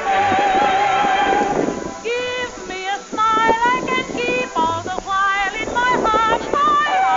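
Background music: a wavering melody line with strong vibrato, one long held note and then a run of short notes from about two seconds in.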